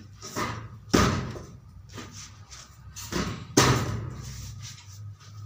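Hollow knocks and slaps on a thick 8 mm PVC ceiling panel as it is forced by hand into the neighbouring panel's groove: a tight fit typical of good-quality, stiff PVC. Two loud knocks come about a second in and about three and a half seconds in, with lighter taps around them.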